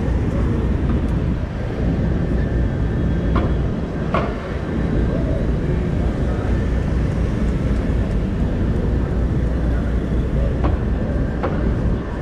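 Busy city street traffic: cars and SUVs passing slowly close by over a steady low rumble, with people talking in the background and a few sharp knocks.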